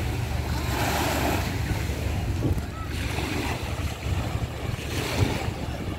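Small sea waves washing onto a sandy shore, under a steady low rumble of wind on the microphone.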